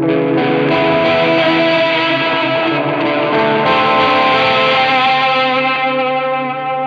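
Electric guitar played through a Strymon Volante magnetic tape/drum echo pedal, its repeats layering into overlapping sustained notes, with the chord shifting about halfway through.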